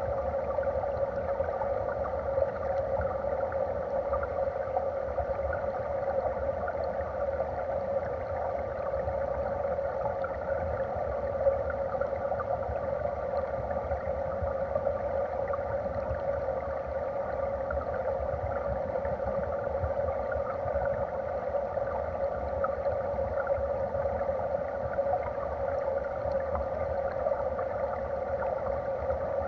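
Steady, muffled rush and crackle of stream water, picked up underwater by a camera in its housing.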